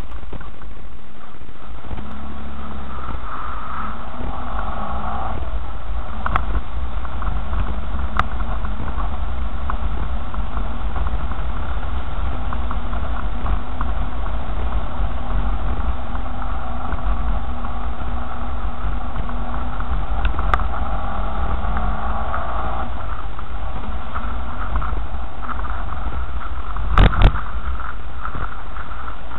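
Car driving over a rough dirt track: a steady, loud low rumble of engine and road noise with a slowly shifting hum. Two sharp knocks come near the end.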